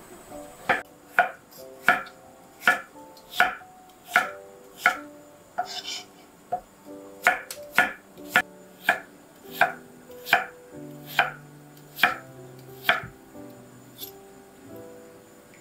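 Knife chopping on a cutting board in slow, even strokes, about one and a half a second, pausing briefly midway and stopping a couple of seconds before the end.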